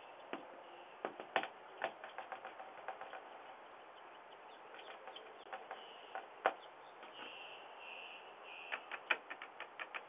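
Sandhill crane pecking at a glass storm door with its bill: irregular sharp taps, the loudest about six and a half seconds in, and a quick run of taps near the end.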